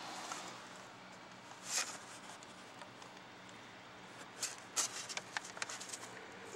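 White paper bag crinkling as it is handled and opened: a brief rustle about two seconds in, then a run of sharp, irregular crackles in the second half, over a steady low hiss.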